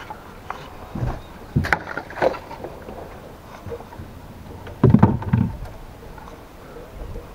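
Irregular knocks and rattles of fishing tackle being handled in a small boat: a few light knocks in the first couple of seconds and a louder cluster about five seconds in.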